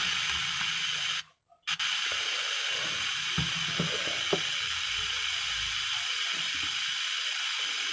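Steady hiss from a speaker driven by a 4440-IC car stereo amplifier, with a few faint clicks as the wire connector is handled; the hiss cuts out briefly about a second and a half in. The amplifier is giving only weak output on this channel, a fault the repairer puts down to the IC.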